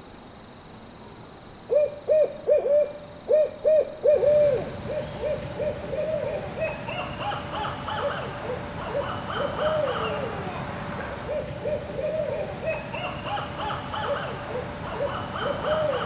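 A pair of barred owls calling together. It starts just under two seconds in with a quick run of short hoots, about three or four a second. From about four seconds in it becomes a jumble of overlapping hoots with rising and falling cackling calls. A steady high-pitched insect-like drone runs under the calls from about four seconds in.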